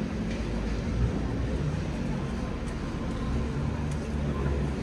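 Steady low rumble of motor traffic on a town street, with faint engine hum coming and going.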